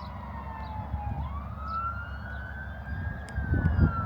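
Emergency-vehicle siren in a slow wail: one tone falls, sweeps back up about a second in, then starts to fall again near the end, over a low rumbling noise.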